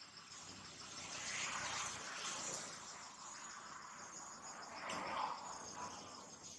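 Insects trilling steadily: a high, rapidly pulsing chirp repeating evenly throughout. Soft rustling swells rise underneath, about a second in and again about five seconds in.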